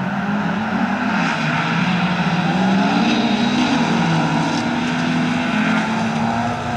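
Several bilcross race cars' engines running hard as the pack passes on a gravel track, their engine notes rising and falling with throttle and gear changes.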